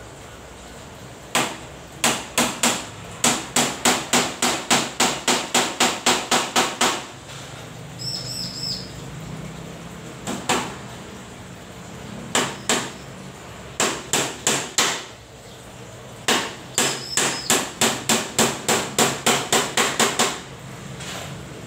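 A hammer striking a wooden cage frame in quick runs of about three to four blows a second, with pauses between the runs.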